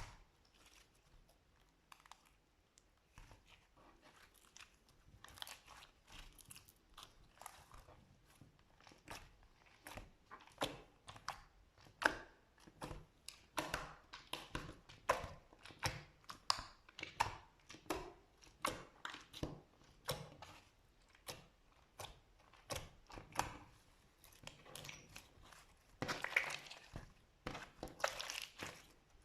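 Slime being squeezed and pressed by hand, giving a run of sticky crackles and pops. The crackles are sparse at first, come thick and fast after about three seconds, and form a denser stretch of crackling near the end.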